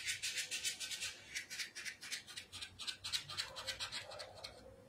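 Quick, repeated scratching strokes, about five or six a second, of rubbing and working fondant wrapped around the side of a cake; they fade out near the end.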